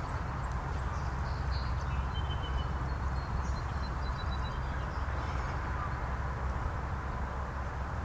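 Honeybees buzzing at a hive entrance as they fly in and out, over a steady low rumble, with a few faint high chirps about two to four seconds in.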